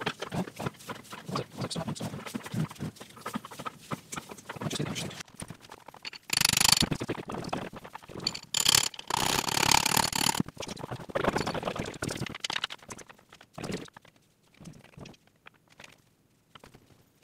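Repeated hammer taps on the bearings of a Volvo M410 gearbox. Then a cordless power tool fitted to the top of the gearbox shaft runs in a few short bursts for about four seconds, turning the shafts.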